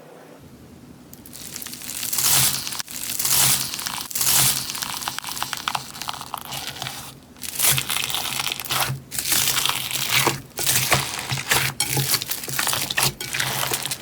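Crunchy slime being squeezed and pressed by hand, giving dense crackling and crunching. It builds up about two seconds in and comes in close runs with short pauses.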